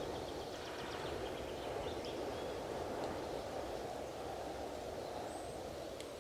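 Strong wind rushing steadily, with faint short bird chirps in the first couple of seconds.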